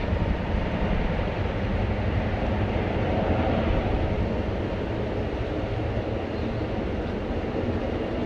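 Steady rumble of jet airliner engines, swelling slightly about three to four seconds in and then easing a little.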